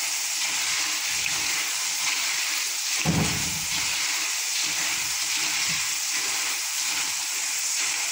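Soaked chana dal deep-frying in hot oil in a wire mesh strainer basket, a steady sizzle as it is stirred with a spatula; the dal is nearly crisp. A dull thump about three seconds in.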